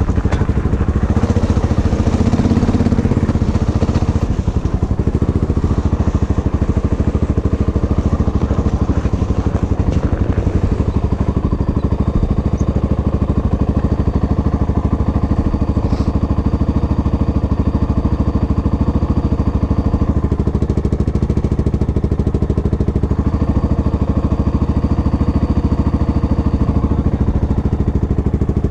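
Vehicle engine running steadily at a constant speed.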